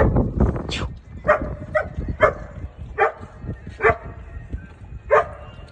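A dog barking in short, separate barks, about six of them at roughly even spacing, after a burst of rustling and handling noise at the start.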